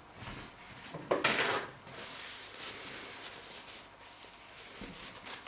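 Handling sounds at a table: a short, loud scrape about a second in, then lighter rubbing and rustling, as of a knife, plate or wrapper being handled.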